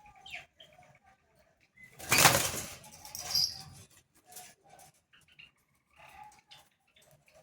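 Loud rustling, like flapping wings, about two seconds in and lasting about a second and a half. Around it a bird makes soft chirps and small scattered rustles while it feeds on acerola leaves.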